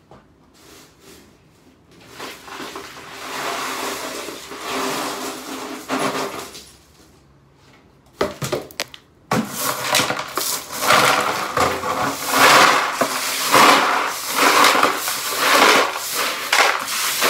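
Broom sweeping small shattered tempered-glass fragments across a tiled floor into a plastic dustpan: repeated scraping strokes with the glass crunching and clinking, loudest from about nine seconds in. An earlier stretch of rattling, clinking glass comes before the sweeping starts.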